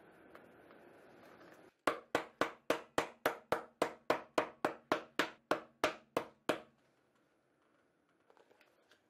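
A fast, even run of about eighteen sharp taps, between three and four a second, starting about two seconds in and stopping abruptly, with a few faint ticks near the end.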